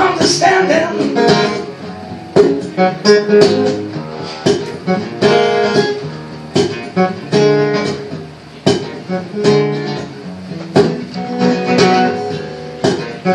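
Two acoustic guitars played together live, strummed in a steady rhythm.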